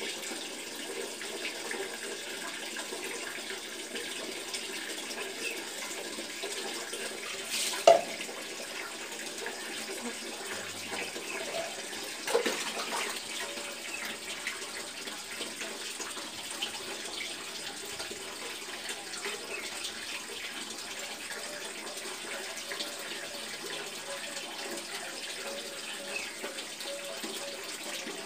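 Steady running water, like a tap running, with a sharp knock about eight seconds in and a smaller one about four seconds later.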